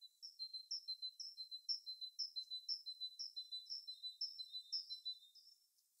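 A small songbird singing a steady series of high, repeated two-part notes, about two a second, for some five seconds before fading out.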